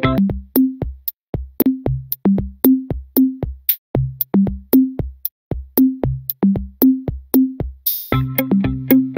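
Background music: a steady drum-machine beat with a bass line. The fuller chord layers drop out at the start and come back in about eight seconds in, after a short cymbal-like swoosh.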